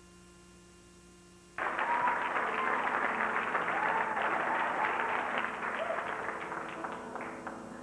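Faint steady hum, then about a second and a half in a theatre audience breaks into applause, which tapers off near the end.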